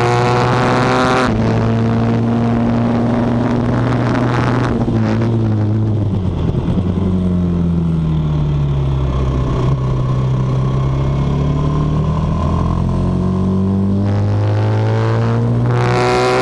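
Single-cylinder Norton Manx race motorcycle engine at high revs over heavy wind rush, its note breaking briefly at gear changes. About six seconds in the revs fall as it slows into a bend. They then climb steadily as it accelerates out, with another gear change near the end.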